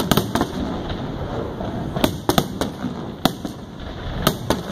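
Fireworks finale: aerial shells bursting in quick clusters of sharp bangs, near the start, about two seconds in, and near the end, over a steady background rumble.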